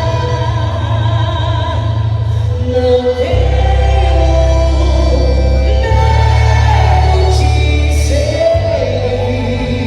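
Loud recorded music with a heavy bass and sung vocals, played for the dance.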